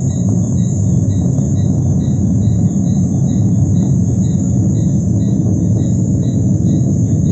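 A deep, steady rumble from the sky, the unexplained 'strange noise in the sky' people were recording, under continuous insect chirping with a regular pulsing beat.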